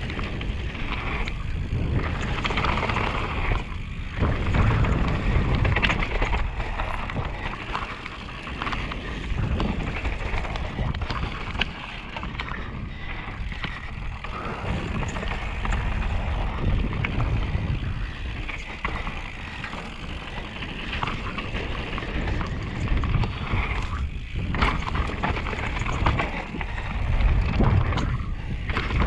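Mountain bike riding fast down a dirt trail: wind rushing over the camera's microphone and tyres rolling over dirt and loose gravel, with scattered sharp knocks and rattles as the bike hits bumps and stones.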